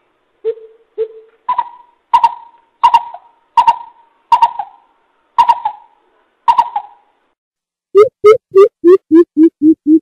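Coucal hooting calls from a lure recording. Two low hoots come first, then a slower series of higher hoots, and about eight seconds in a fast, even run of low hoots about three a second.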